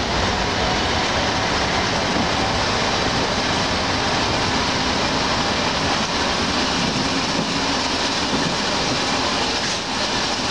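Railway track-maintenance motor car with a flat wagon running along the track: a loud, steady rumble of engine and wheels.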